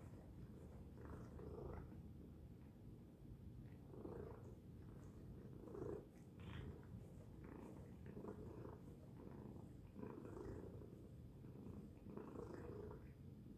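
Domestic tabby cat purring steadily, the purr swelling and easing about once a second with each breath.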